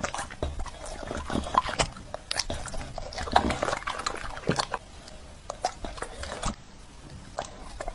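Dog chewing and smacking its lips on juicy pieces of red dragon fruit taken off a fork, in quick irregular wet smacks that ease off near the end.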